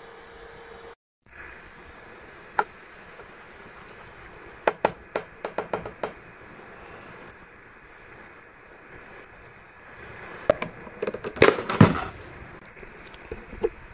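Scattered light clicks and taps of handled objects, then three evenly spaced high electronic beeps, then a louder burst of clinking and knocking of hard objects.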